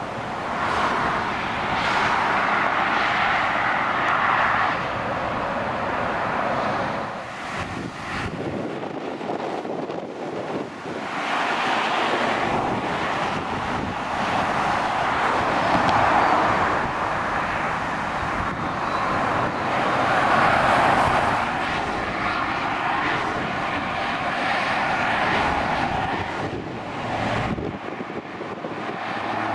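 Motorway traffic passing below: lorries and cars going by, their tyre and engine noise swelling and fading with each pass.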